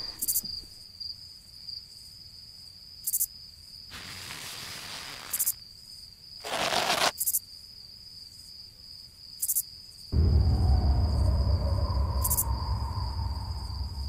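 An insect, cricket-like, trilling steadily on one high note, with short higher chirps every few seconds. There is a brief louder rush partway through, and from about ten seconds in a loud low rumble joins.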